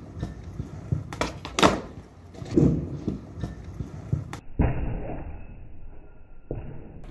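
Skateboard on concrete: several sharp clacks of the tail and deck striking the ground, with the wheels rolling in between. For about two seconds past the middle the sound turns muffled.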